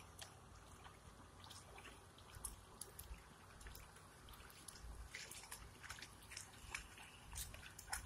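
Faint splashing and dripping of shallow muddy water as a puppy paddles and a larger dog wades through it, the small splashes coming more often from about five seconds in.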